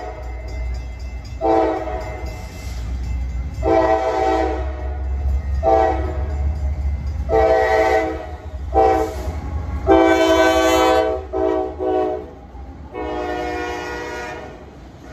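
Norfolk Southern AC44C6M diesel locomotive sounding its air horn, several tones at once, in a string of blasts. Most blasts last about a second, with a few short ones between them, and the loudest comes about ten seconds in. The low rumble of the locomotive runs beneath the horn.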